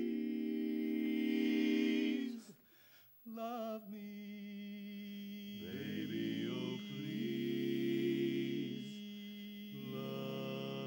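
Men's barbershop quartet singing a cappella in four-part close harmony, holding sustained chords. The chord breaks off briefly about two and a half seconds in, then the voices come back and hold further chords, with some parts moving around the middle.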